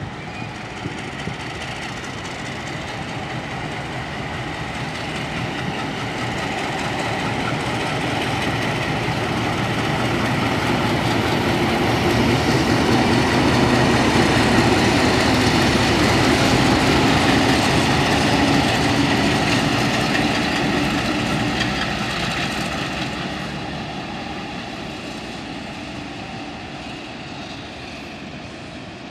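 MLW diesel-electric locomotive passing by with its engine running. It grows louder as it approaches, is loudest about halfway through, then fades as it pulls away.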